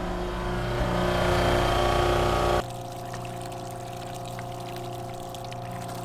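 Rainman AC electric high-output watermaker's pump running just after switch-on, with water rushing through the lines while the system is still unpressurized. About two and a half seconds in, the sound drops abruptly to a quieter steady hum.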